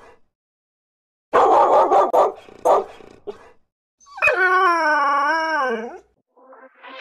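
A dog barks a few times, rough and gruff, from about a second in. From about four seconds in it gives one long wavering howl lasting about two seconds.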